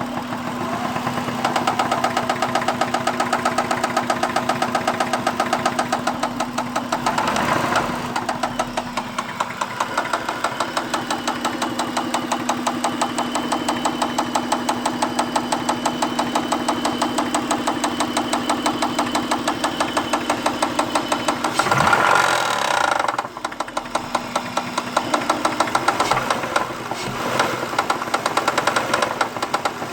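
2001 Acura engine running with a rapid, even ticking over its steady hum. This is the ticking noise the owner wants identified.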